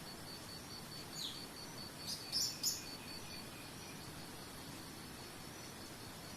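Outdoor nature ambience: an insect trilling in an even high pulse over a faint steady hiss, with bird calls on top. A descending whistle comes about a second in, then three sharp high chirps around two and a half seconds in, the loudest sounds.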